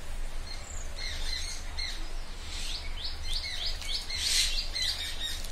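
A small bird chirping in short runs of quick high notes, with a steady low hum underneath.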